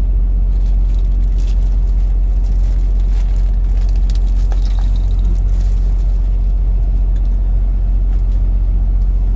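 A steady, loud low rumble with faint scattered rustles and light clicks over it.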